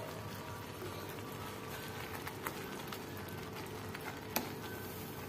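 Carrot, milk and sugar mixture simmering in a frying pan: a steady low bubbling with scattered soft pops. A single light knock a little over four seconds in.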